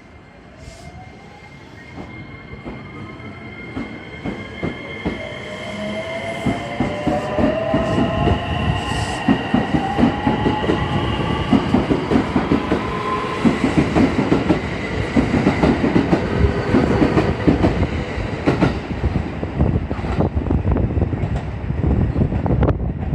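An electric commuter train drawing closer and passing, louder over the first several seconds. Its motors give a whine that rises slowly in pitch as it accelerates, and its wheels then clack steadily over the rail joints.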